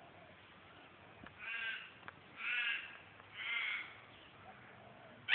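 A crow cawing three times, about a second apart, with a sudden short loud sound at the very end.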